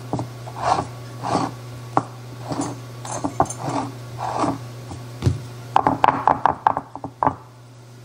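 Fingers pressing and patting oily press-in pie crust dough into a pie dish: soft pats every half second or so, quickening into a run of quick taps about six seconds in. A steady low hum runs underneath.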